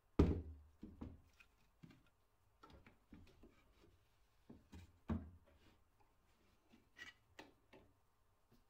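A series of irregular, sharp knocks and clicks of hard objects being handled, the loudest about a quarter of a second in and another strong one about five seconds in, with lighter taps and clicks between.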